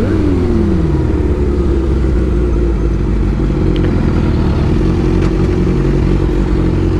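Suzuki GSX-R1000 inline-four with an aftermarket exhaust pipe running steadily at low revs while the bike rolls along, with one tone falling away in about the first second.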